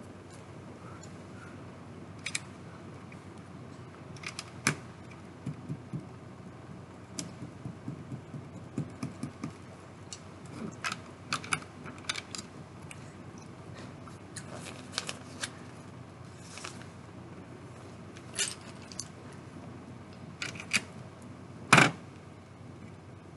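Plastic Lego bricks clicking and rattling as a built model is handled, in scattered small clicks, with one louder knock near the end.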